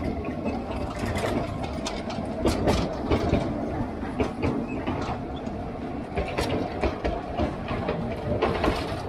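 Wheels of a small rail vehicle on narrow-gauge track, a steady rumble with irregular clicks and knocks of the rail joints.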